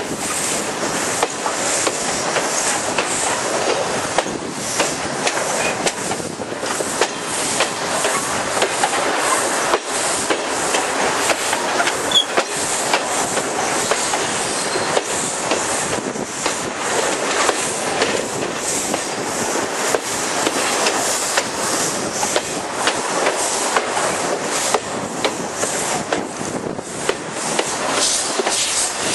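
Passenger coach of a steam-hauled train running at speed, heard from its open window: a steady rush of wheel and rail noise with irregular clicks over the rail joints.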